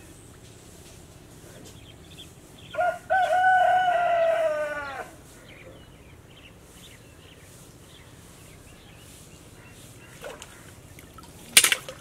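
A rooster crows once, about three seconds in: two short opening notes and then a long held note that falls in pitch at the end. Near the end, a brief sharp noise.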